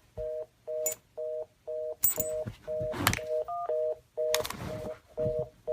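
Telephone busy signal: a repeating two-note beep, about two a second. A single higher keypad-like beep comes about 3.5 s in, and a few short, louder noises come between 2 and 5 s in.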